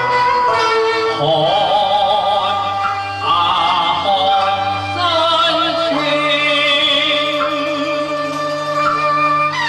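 Cantonese opera music: a melody with a wavering vibrato over steady lower notes.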